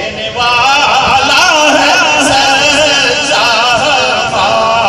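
A man singing a Punjabi naat, a devotional poem in praise of the Prophet, in long wavering melismatic notes.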